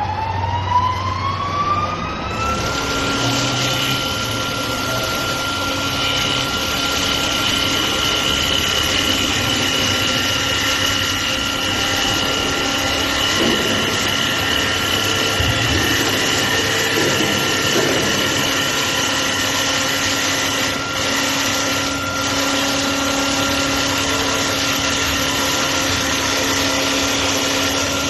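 CNC wood turning lathe running: a motor whine rises in pitch over the first few seconds as it spins up, then holds one steady pitch over a constant machine noise.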